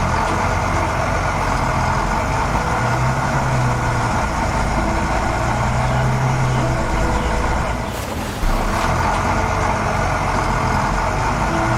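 Heavy diesel machinery running steadily, its engine note rising and falling in the low end, with a brief dip and a sudden change about eight seconds in.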